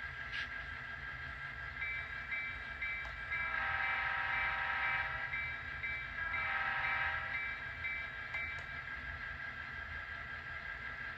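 HO scale model diesel locomotive's DCC sound decoder playing through its small onboard speaker: the engine running steadily with a bell ringing, and two horn blasts, a longer one about three and a half seconds in and a shorter one about six seconds in.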